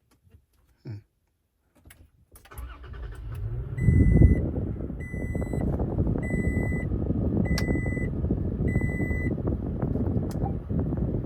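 A Toyota Tacoma's engine cranking, catching with a brief surge about four seconds in, then idling steadily. Over the idle, a cabin warning chime beeps five times, evenly spaced.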